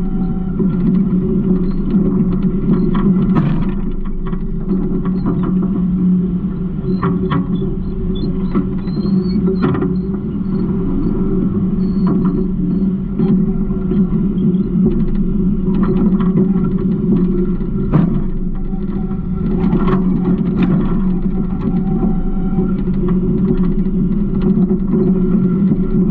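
Garbage truck running, a steady low engine drone with scattered clanks and rattles throughout and faint high squeaks partway through.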